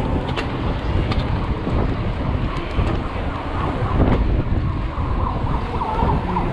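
Wind buffeting a handlebar-mounted action camera's microphone as a mountain bike is ridden over brick paving, with knocks and rattles from the bike; a sharper knock about four seconds in.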